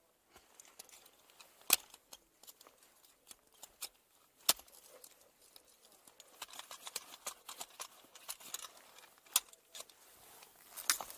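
Ice tool picks striking into waterfall ice: four sharp strikes a few seconds apart, with smaller clicks and scraping of ice in between.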